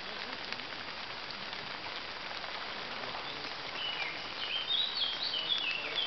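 Light rain pattering on leaves as a steady hiss with tiny drop ticks. About two-thirds of the way through, a small songbird sings a quick run of short, high chirping notes.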